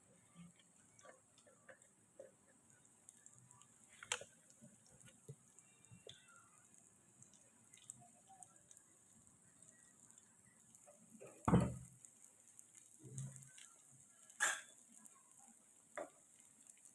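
Scattered light clicks and taps of kitchen utensils and dishes being handled, with one louder knock about two-thirds of the way through.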